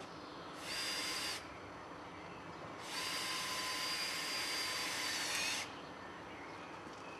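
Cordless drill-driver running in two bursts, a short one and then a longer steady whine of about two and a half seconds, driving screws to fix wooden shingle elements to the wall battens.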